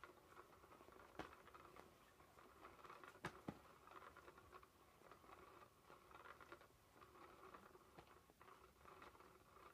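SmartyKat Hot Pursuit cat toy running, faint: its small motor whirring as the wand sweeps around under the fabric cover, with a constant rustling scratch, and a few sharp clicks, the loudest a little over three seconds in.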